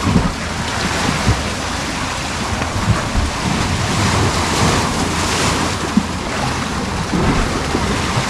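Ocean surf rushing in and splashing against the shoreline rocks, a continuous wash that swells about halfway through, with wind buffeting the microphone in low thumps.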